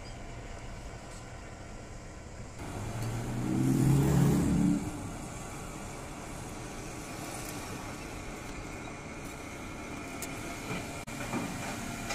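Crawler excavator's diesel engine running steadily. About three seconds in it swells into a louder, deeper run for about two seconds, then drops back suddenly to its steady level.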